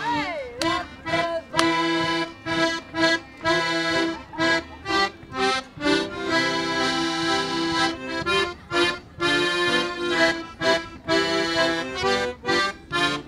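An ensemble of piano accordions playing a tune live, in short, rhythmic chords with a steady beat.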